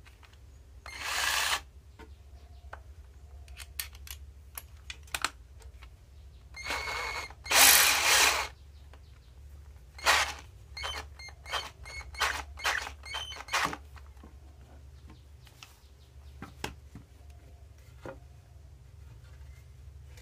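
A 12-volt cordless drill is run in short bursts, its motor whirring, the loudest burst about eight seconds in. After that comes a quick run of sharp ratcheting clicks.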